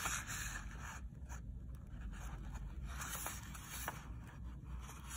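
A large sheet of drawing paper being folded in half and the fold pressed down by hand: faint handling of the paper with a few short scrapes.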